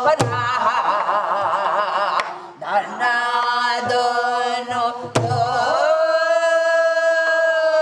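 A woman singing Korean gueum, wordless vocal syllables, in long held notes with a wide wavering vibrato, over a gutgeori rhythm on a pansori barrel drum (sori-buk) struck with a stick. Two sharp drum strokes land near the start and about five seconds in, and a long steady note is held near the end.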